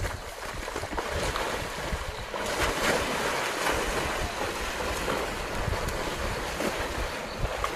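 Water splashing and churning as a lion and an antelope struggle in a river, loudest about three seconds in, with wind rumbling on the microphone.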